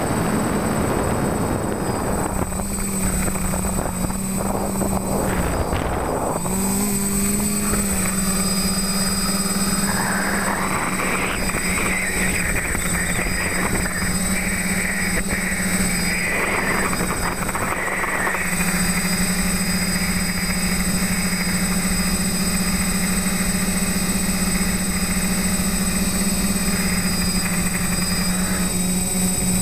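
TBS Discovery quadcopter's electric motors and propellers buzzing steadily in flight, heard through its onboard camera; the pitch dips briefly a few times as the throttle changes, and wind rushes over the microphone at times.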